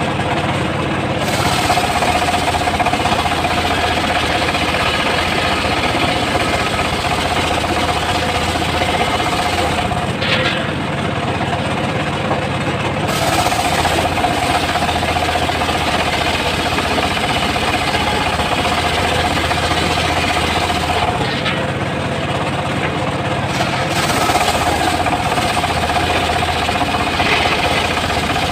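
Homemade engine-driven circular sawmill running steadily, its blade cutting through a log in three long passes with short breaks between them, where only the engine drone is left.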